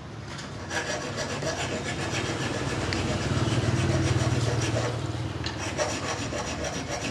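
Rasping, scraping noise, with a low hum that swells for a couple of seconds in the middle.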